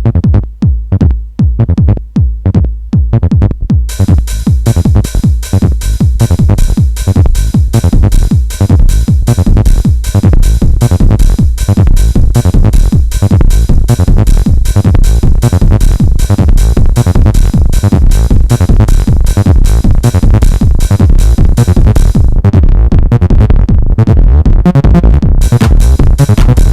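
Acid techno played on hardware: a drum-machine beat with a Behringer TD-3-MO acid bassline and synthesizers. It opens with only the bass and kick pulsing; about four seconds in the hi-hats and bright upper parts come in, drop out briefly near the end, then return.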